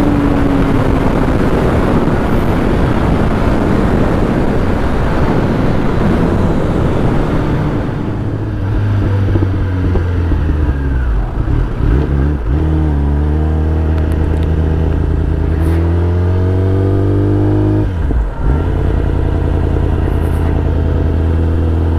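Kawasaki ZX-10R motorcycle being ridden: for the first several seconds a steady rush of wind noise covers everything. About eight seconds in the wind drops away as the bike slows, and the engine comes through at low revs, its pitch rising and falling with throttle and gear changes, with two brief lulls around the middle and near the end.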